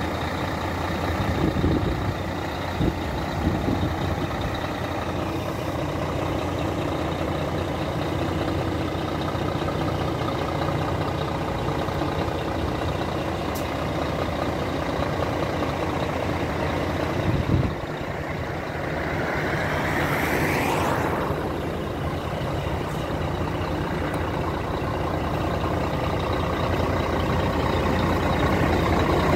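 Scania R420 tractor unit's diesel engine idling steadily. A short knock about halfway through, and a brief whooshing sweep that rises and falls a few seconds later.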